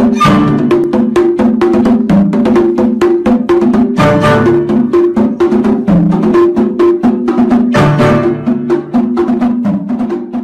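Upbeat background music with a fast, even percussive beat, steady pitched notes and a crash about every four seconds, fading near the end.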